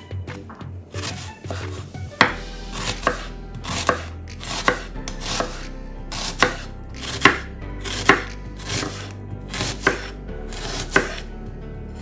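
Kitchen knife slicing an onion into thin half rings on a wooden cutting board: each stroke a crisp crunch through the onion ending in a tap of the blade on the board, repeating about twice a second from about two seconds in.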